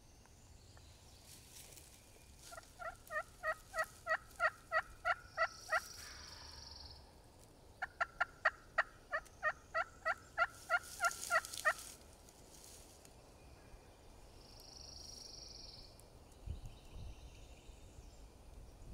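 Wild turkey calling in two long runs of rapid, evenly spaced notes, about four a second, each run lasting three to four seconds.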